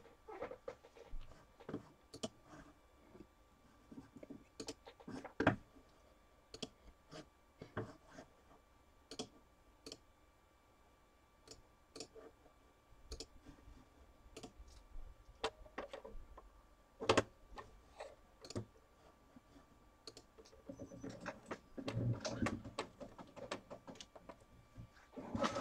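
Irregular, faint clicks of typing on a computer keyboard, with mouse-style clicks in between. They come more densely in the last few seconds.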